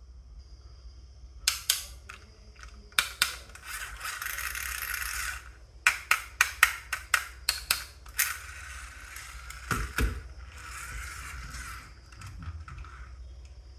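Marbles rolling down a wooden marble run, with stretches of rolling rumble broken by sharp clacks as they drop and knock against the track pieces and each other, including a quick run of clacks about halfway through and one dull thump.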